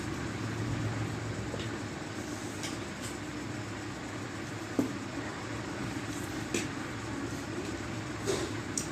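Steady low background hum, with a few short clicks of chopsticks against plates during a noodle meal, one about halfway and a couple near the end.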